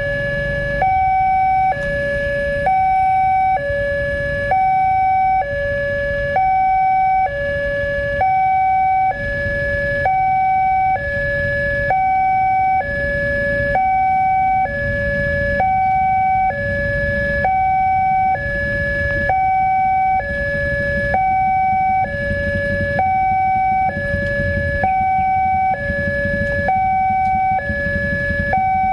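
Railway level-crossing warning alarm sounding a steady two-tone alternation, a lower and a higher tone each held just under a second, warning that a train is approaching. A low rumble runs underneath.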